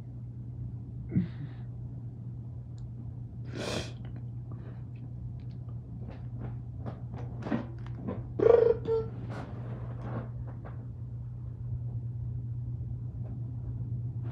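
Steady low rumble of a freight train heard from inside a room, under rustling and knocks from a phone being handled against bedding; the loudest knocks come about a second in and just past the middle.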